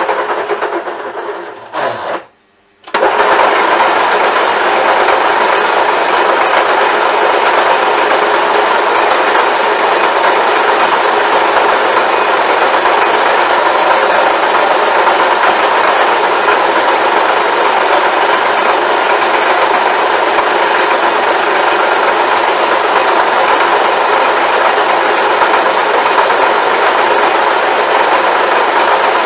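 IT-1M metal-turning lathe running steadily at a lowered spindle speed while parting off a workpiece. It starts running about three seconds in, after a brief stop.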